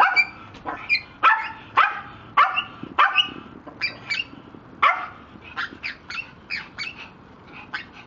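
Dog barking repeatedly, short sharp barks about two a second, louder for the first five seconds or so and fainter after.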